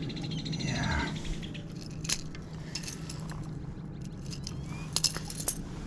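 Light metallic clicks and clinks of fishing tackle being handled while a landed smallmouth bass is unhooked, with a sharp click about two seconds in and a quick cluster near the end, over a steady low hum.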